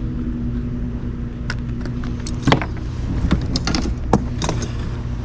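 A steady low motor hum, with a scatter of sharp clicks and light knocks from gear being handled, the loudest about halfway through and again near the end.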